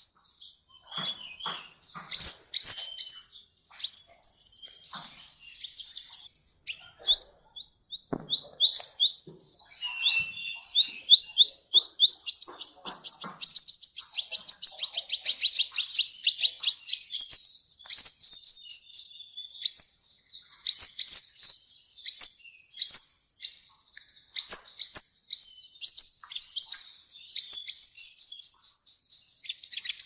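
Kolibri ninja (van Hasselt's sunbird) singing a long, varied song of rapid runs of high, thin down-sweeping notes, about five or six a second, broken by short pauses.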